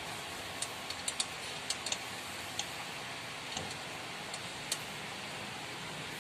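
Light, sharp clicks and ticks, about a dozen at uneven intervals and mostly in the first half, as bolts are handled and fitted by hand into the underside of the engine while installing an oil pan; a steady hiss underneath.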